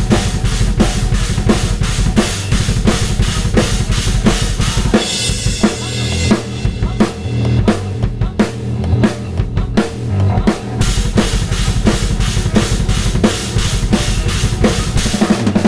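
Metal drumming on a drum kit: rapid double bass drum kicks under snare hits, played over a looped heavy metal guitar riff. About five seconds in a cymbal wash starts a sparser, broken passage, and the steady double-kick pattern returns near eleven seconds.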